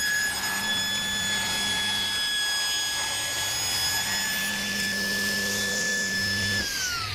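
Hammer sliding table saw running with a steady high whine while wood is fed through it, then switched off near the end, the whine falling in pitch as the blade spins down.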